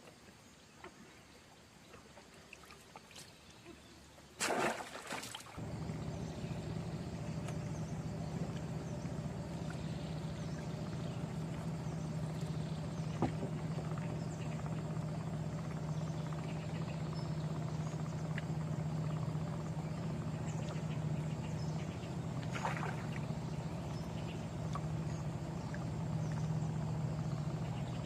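A brief loud noise about four and a half seconds in, then a small engine running steadily at an even pitch.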